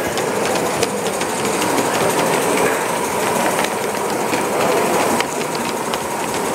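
Live-steam model of the narrow-gauge tank locomotive 'Prince of Wales' running along a layout track, with many small quick clicks from its wheels and motion over a steady background hubbub.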